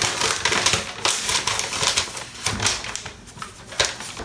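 Hands handling lava lamp parts and packaging: a run of short clicks and rustles, dense for about two seconds, then a few scattered clicks.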